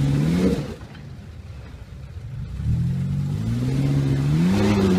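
Off-road SUV's engine revving hard under load on a steep climb. The revs rise, fall off under a second in, then build again steadily from about three seconds in.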